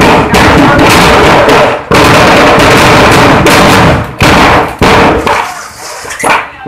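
A stock of firecrackers burning and going off in a dense, continuous crackling barrage, loud enough to distort the recording. About five seconds in it thins to scattered bangs.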